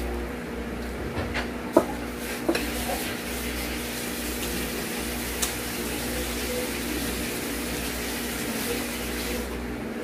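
Eating sounds: chewing and biting into crispy fried chicken, with a few sharp clicks, over a steady background hum.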